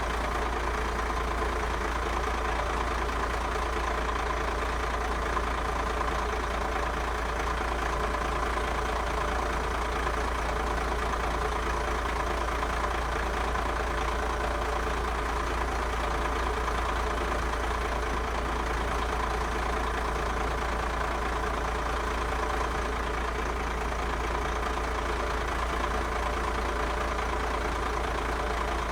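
Old school bus diesel engine running steadily at an even speed, with no revving.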